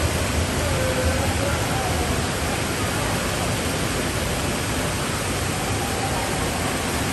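Indoor water park ambience: a steady wash of running and splashing water from the pool and water play structure, with faint voices of people in the pool.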